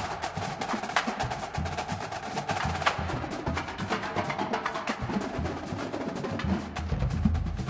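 Marching band percussion playing a street cadence: rapid sharp snare and stick clicks over low bass drum hits.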